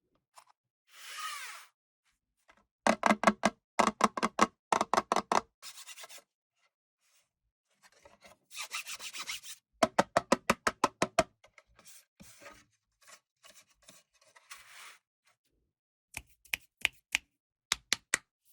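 Hand work on a small model: two short scraping or rubbing passes, each followed by a quick run of sharp taps and knocks, with a few single clicks near the end.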